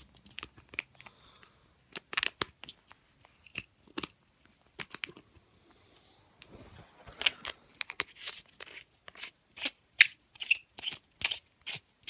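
Irregular clicks and scrapes of a visual fault locator pen being handled while its battery cap is screwed down, sparse at first and coming thick and fast in the last five seconds.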